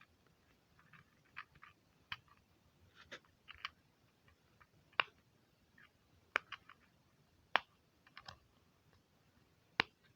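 Dimple fidget spinner: its silicone bubble buttons being pressed with the fingers, giving a string of soft, irregular pops and clicks.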